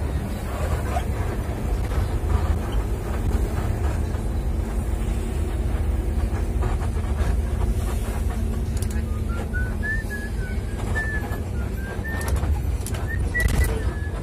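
Car driving at steady speed, its low engine and road rumble heard from inside the cabin. From about nine seconds in, a run of short high chirping notes rises and falls over the rumble.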